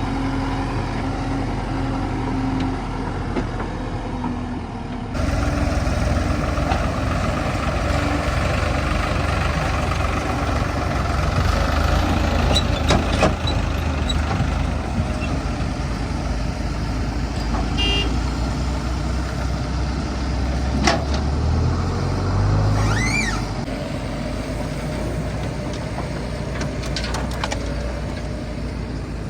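Heavy diesel machinery running, a backhoe loader or tractor engine working steadily. About five seconds in the sound changes abruptly and grows louder, with a few sharp knocks later and a brief rising-then-falling squeal near the end.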